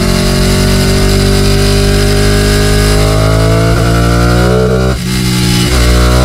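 Ducati Panigale 899's Superquadro V-twin under acceleration. The revs climb steadily, dip briefly about five seconds in as it shifts up a gear, then climb again.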